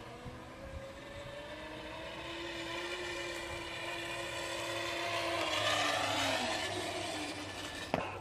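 Razor E225 electric scooter's chain-driven motor whining as it carries a rider toward and past the camera. It grows louder as it approaches, and its pitch drops as it passes near the end. It runs on about half a battery charge. A sharp click comes just before the sound cuts off suddenly.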